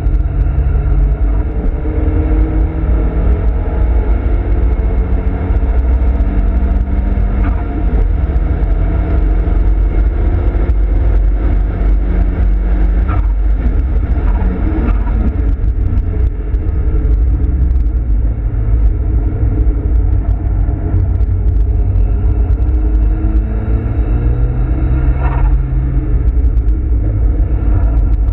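Nissan Silvia S15 Spec R's turbocharged SR20DET four-cylinder driven hard on a race circuit, heard from inside the cabin. The engine note climbs and drops several times over a heavy low rumble of road and drivetrain noise.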